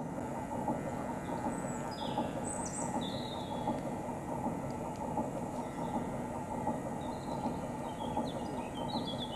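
Small birds chirping in short, falling calls, a few times early on and again near the end, over a steady low rushing noise.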